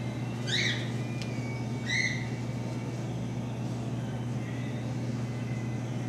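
Cougar cub giving two short, high-pitched whistling chirps about a second and a half apart, over a steady low hum.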